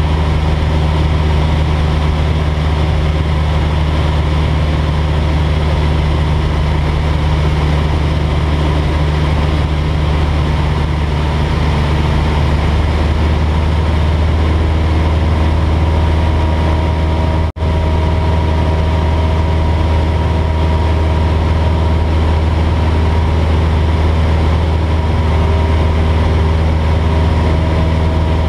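Single-engine light aircraft's engine and propeller running steadily in cruise, heard as a constant low drone from inside the cabin. The sound cuts out for an instant about two-thirds of the way through.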